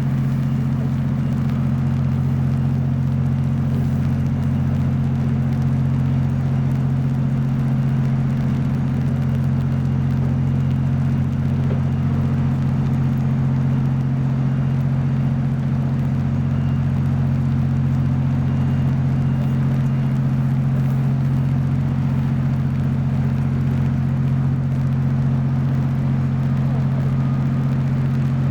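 A steady low engine hum, made of several fixed low tones that hold unchanged throughout.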